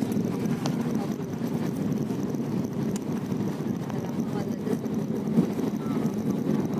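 Steady low drone of an airliner's engines and airflow heard from inside the passenger cabin.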